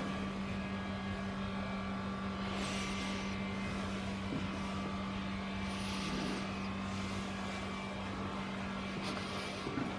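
Underground metro station ambience: a steady low hum under a haze of noise that swells about three seconds in and again about six seconds in, the second time with a faint high squeal.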